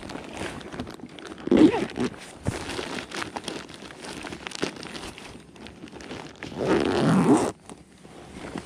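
Rustling, crinkling and scraping of fishing gear being handled right by the mic, with two louder rushes: one about one and a half seconds in, and a longer one near the end.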